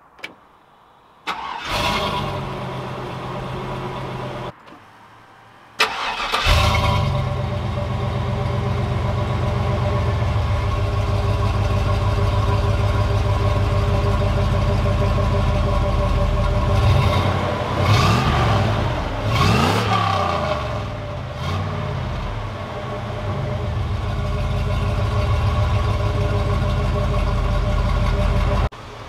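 LS-swapped V8 in a Humvee, breathing through the stock exhaust, starting up and settling into a steady idle. Heard close at the tailpipe, it idles with a couple of quick revs of the throttle about two-thirds of the way in.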